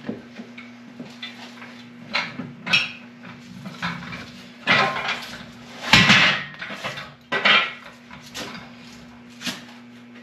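Steel engine stand and its adapter clanking and rattling against a small-block Chevy 350 hanging from a hoist chain as the stand is lifted and worked onto the engine: irregular metal clanks and rattles, loudest about six seconds in.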